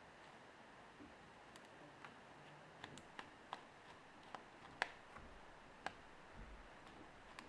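Faint, scattered small clicks from a precision screwdriver and small screws on an iPhone 3G's internals, about eight clicks in the middle stretch, with one sharper click a little past halfway.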